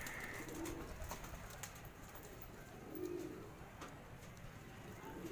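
Domestic fancy pigeons cooing softly: two short low coos, one under a second in and another about three seconds in.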